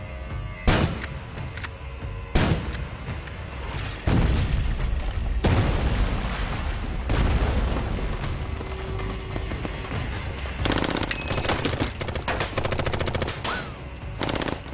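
Gunfight: a few heavy single shots, then a loud explosion about four seconds in that rumbles on for several seconds, and rapid automatic rifle fire near the end.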